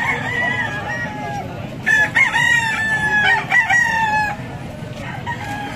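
Gamecock crowing: one loud, close crow lasting about two seconds, starting about two seconds in, with fainter crowing before it.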